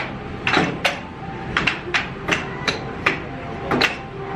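Arcade basketball machine being played: balls knock against the backboard and rim in a quick, irregular series, two or three a second, with faint steady arcade-machine tones behind.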